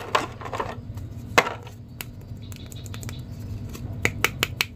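Clicks and crackles of a clear plastic blister tray as an action figure is pried out of it by hand. There is a sharp click about a second and a half in and a quick run of four clicks near the end.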